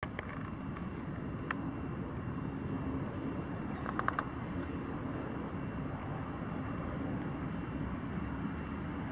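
Steady high-pitched insect chorus, droning on without a break, with a short run of four quick chirps about four seconds in.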